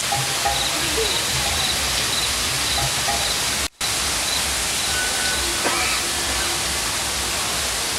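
Steady rushing background noise, with faint voices in it. The sound cuts out completely for a moment just before four seconds in.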